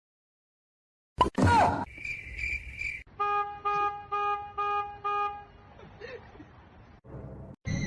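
A horn tooting six short, evenly spaced times, after a brief loud sliding sound and a steady high tone.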